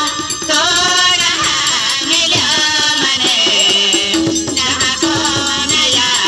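Live folk music played through a stage PA: singing, with held instrumental notes joining in near the end.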